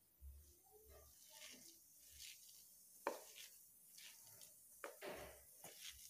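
Near silence, with faint soft sounds of a hand kneading a dry dough of mashed potato, grated cauliflower and gram flour in a steel plate, and two faint clicks about three and five seconds in.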